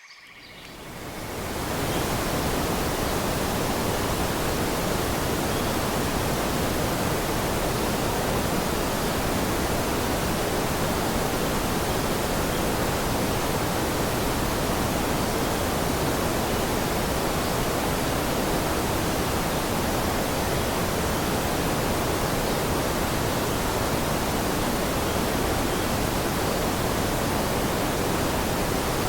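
Steady rushing water, an even hiss with no breaks, fading in over the first two seconds and then holding constant.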